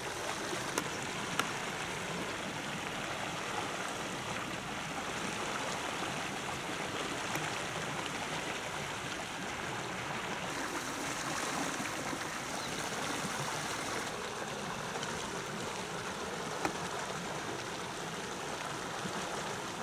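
Flowing river water running steadily, with a few faint ticks.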